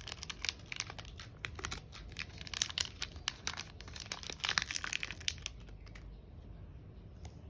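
Chocolate bar wrapper being crinkled and torn open in rapid crackles, which stop about six seconds in.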